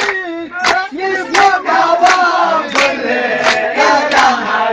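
A group of voices singing a tarana together, with hand claps keeping time about three claps every two seconds.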